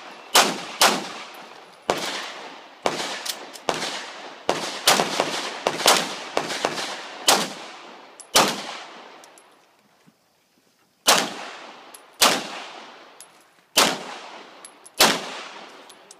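CZ SP-01 Shadow pistol fired in quick strings, each shot trailed by a short echo: a rapid series of shots through the first eight seconds or so, a pause of about two and a half seconds, then four more shots roughly a second apart.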